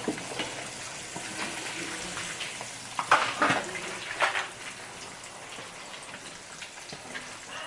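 Fish frying in hot oil in a pan, a steady sizzle full of small crackles. A few louder knocks or pops come about three to four and a half seconds in.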